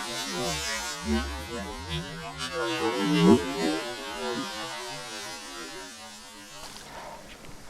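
A boat's engine running, its pitch wavering, until it cuts off abruptly near the end.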